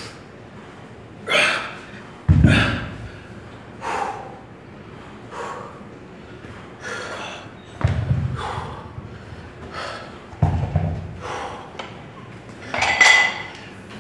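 A person breathing hard in sharp bursts about every one and a half seconds, typical of exhaling through exercise reps. A few dull low thuds fall among the breaths, about two, eight and ten and a half seconds in.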